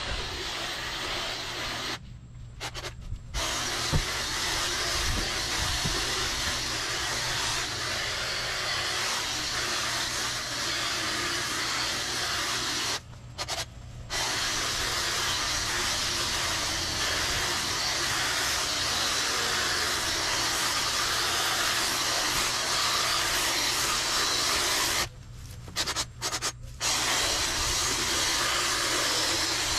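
Outdoor power equipment running with a loud, steady rushing hiss. The hiss drops out abruptly three times for about a second each, leaving a low rumble underneath.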